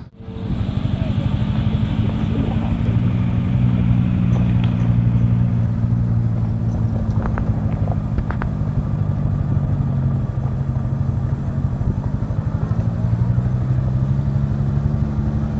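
Motor vehicle engine running at a steady, even speed, heard from on board while travelling, with a few short clicks or rattles about seven to eight seconds in.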